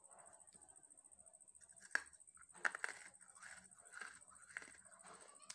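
Close-miked crunching of a person biting into and chewing a lump of dry red clay: a sharp crack about two seconds in, then a quick cluster of crunches and a few more scattered bites.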